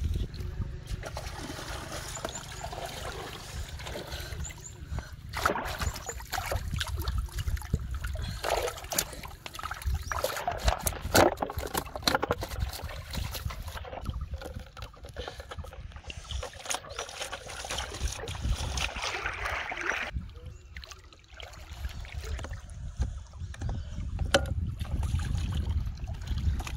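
Shallow pond water splashing and sloshing, with irregular knocks and clicks, over a steady low rumble.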